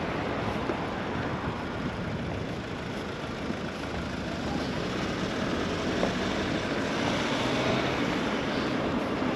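Road traffic: the steady hiss and hum of cars on a multi-lane road, growing a little louder in the second half as a car approaches.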